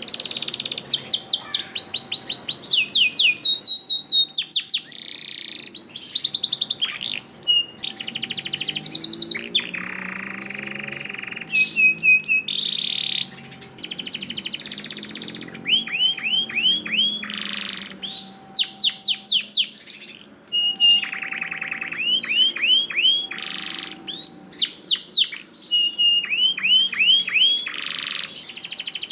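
Domestic canary singing a long, continuous song of rapid trills, each a fast run of repeated falling notes, switching to a new trill every second or two with only brief pauses.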